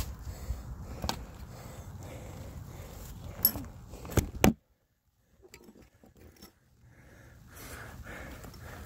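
Steady low outdoor rumble with a few sharp clicks, the loudest just before it cuts off suddenly about four and a half seconds in. After a moment of near silence, faint rustling and handling noise from a handheld phone camera.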